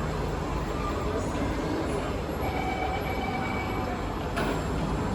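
An SMRT C151A electric metro train running out of the station, a steady rumble of wheels on rail. About two and a half seconds in, a thin steady whine sounds for over a second, and a sharp click comes near the end.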